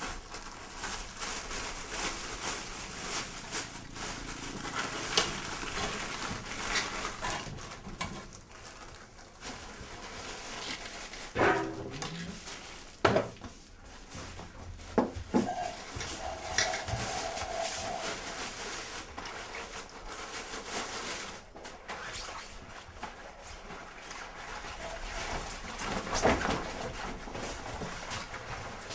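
Scattered animal calls among knocks and clatter.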